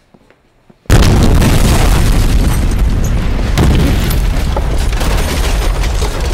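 A sudden, very loud explosion about a second in, followed by a long rumble that fades only slowly.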